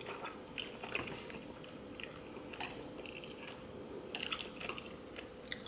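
Close-miked chewing of spicy noodle tteokbokki: soft, wet mouth clicks and smacks scattered through, a little busier about four seconds in, over a faint steady hum.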